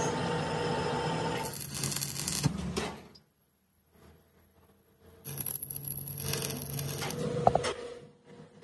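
Stick arc welding: the electrode crackles and sizzles as weld is laid onto a steel gearbox main shaft to build up worn metal. The arc burns for about three seconds, stops, and is struck again for another three seconds about two seconds later.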